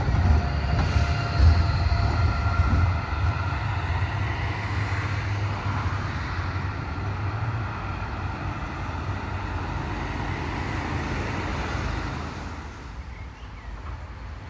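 Low vehicle rumble with faint steady high tones, gradually fading and dropping off sharply about twelve seconds in.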